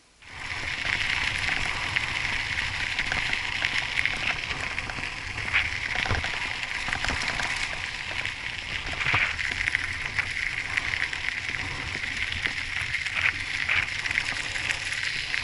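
Mountain bike tyres crunching over a loose gravel road while riding: a steady crackling noise full of small clicks from the stones under the wheels.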